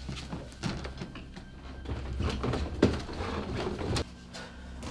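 Footsteps moving quickly, a row of soft irregular knocks about two a second, over a low steady hum.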